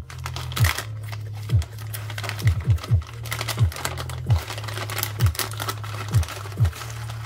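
Background music with a steady low bass and a deep beat, over light crinkling and clicking of a plastic packet of fried onions being shaken over a bowl.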